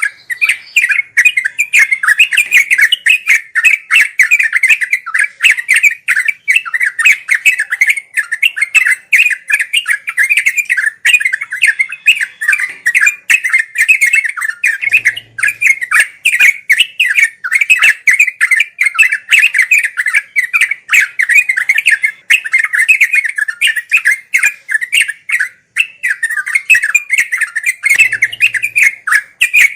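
Yellow-vented bulbul (trucuk) singing a rapid, nonstop chattering song, a quick string of short notes with hardly a break.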